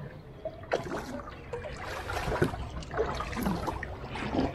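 Wooden canoe paddle dipping and pulling through the water in several splashy strokes, with water trickling and gurgling off the blade.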